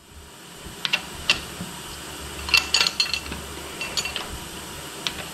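Metal hand tools clinking and scraping against a Massey Ferguson 35 diesel engine's cylinder head while working a stuck fuel injector loose: scattered sharp clinks, with a quick cluster in the middle.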